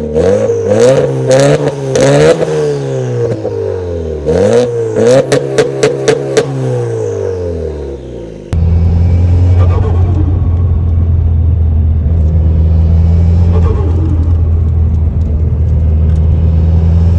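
Subaru WRX turbocharged 2.0-litre flat-four on a catless HKS carbon-titanium exhaust, revved twice. Each rev rises and falls in pitch, and a quick chatter of turbo flutter comes as the revs drop off. About eight and a half seconds in, the sound switches suddenly to a steady, louder low engine drone.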